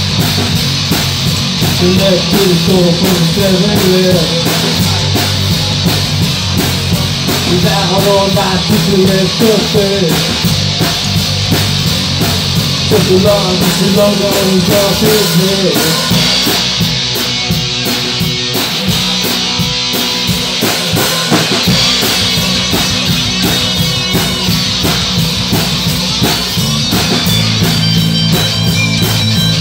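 Live rock band playing: electric guitars over a drum kit, with a bending lead melody standing out in the first half.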